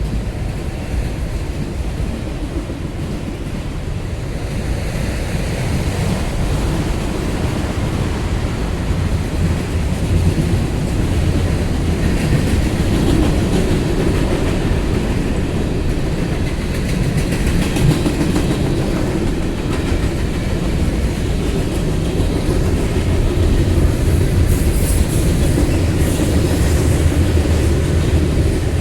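Cars of a long mixed freight train rolling past: a steady rumble of steel wheels on rail that grows a little louder partway through.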